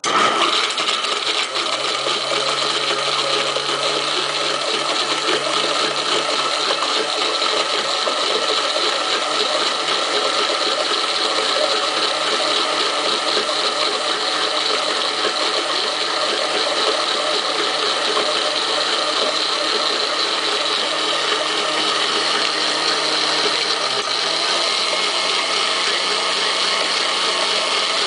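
A 1949 Arno blender's electric motor is switched on and runs steadily, blending a lemon drink. The motor hum steps up slightly in pitch near the end.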